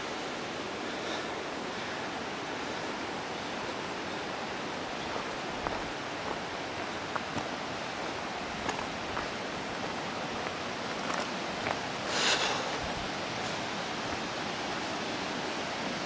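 Steady, even rush of water, with a few faint clicks and a brief louder rustle about twelve seconds in.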